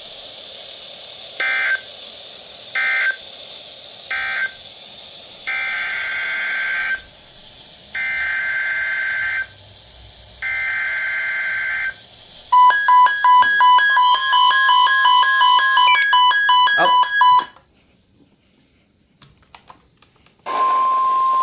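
NOAA Weather Radio SAME digital data bursts, a harsh two-tone screech: three short end-of-message bursts, then three longer header bursts of about a second and a half each. About twelve seconds in, a loud rapidly pulsing electronic alert beeps for about five seconds. After a few seconds of quiet, a steady warning tone near 1 kHz starts near the end.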